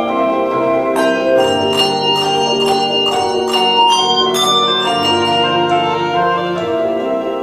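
Handbells ringing a slow hymn tune in chords. Each struck note rings on and overlaps the next, with a new strike about every half second.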